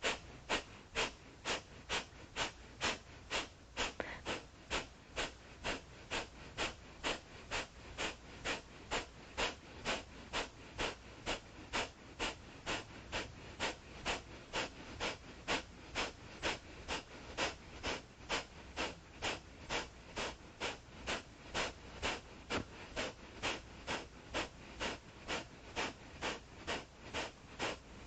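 Kapalabhati (breath of fire) pranayama: a steady train of short, forceful exhalations pushed out through the nose, about two to three a second.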